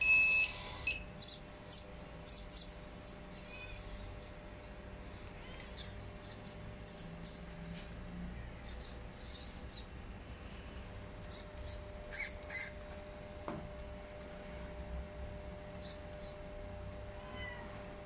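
An RC transmitter beeps once at the start, then the model loader's servos give short high-pitched chirps, one after another in irregular bursts, over a faint steady hum.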